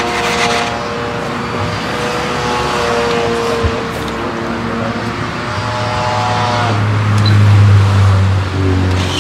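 Radio-controlled model aircraft engine running: a steady whine that drifts slowly in pitch, with a low drone that swells loudest about seven to eight seconds in.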